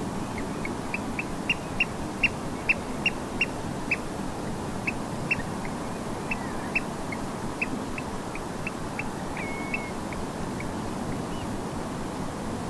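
Eurasian oystercatchers calling: a quick run of short, sharp, high piping notes, loudest in the first few seconds and thinning out after about ten seconds. Under them runs a steady low hiss of distant gentle surf.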